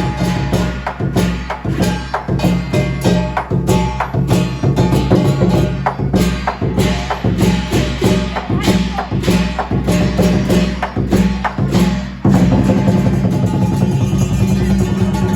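Lion dance percussion, drum and cymbals beating out a fast, uneven rhythm of sharp strikes. About twelve seconds in it cuts abruptly to a different, steadier piece of music without strikes.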